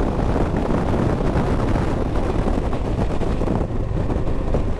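Steady wind rush over the microphone of a motorcycle riding at highway speed, with the bike's running and road noise beneath it.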